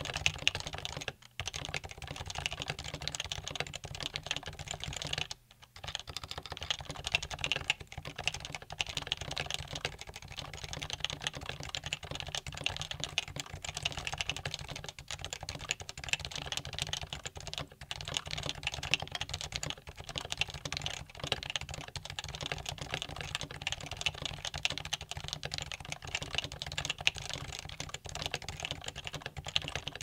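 Fast touch typing on a Happy Hacking Keyboard Professional 2 with Topre 45 g rubber-dome switches in its stock case and keycaps, set on a towel that isolates it from the desk: a dense, unbroken run of keystrokes, pausing briefly about a second in and again about five seconds in.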